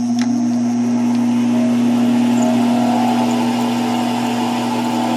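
Small metal lathe, driven by a converted treadmill motor, running at steady speed with a strong even hum while the spindle turns for center-drilling the end of the stock.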